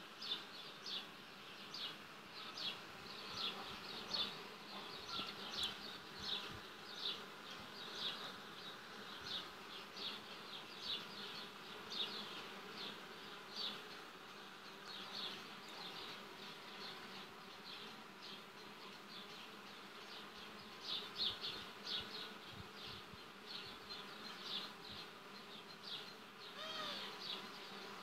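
Honeybees buzzing at the entrances of wooden hives: a faint steady hum of many bees. Short high-pitched pulses repeat a couple of times a second throughout, and a falling sweep passes near the end.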